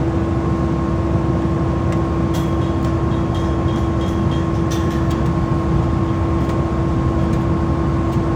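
A drilling rig's engine running steadily with a constant hum, while the casing is lifted and held. A few light metallic clicks come between about two and five seconds in.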